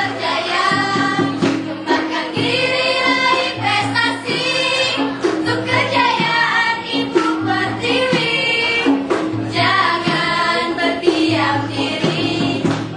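A group of young voices singing together over a musical accompaniment with a repeating low bass line.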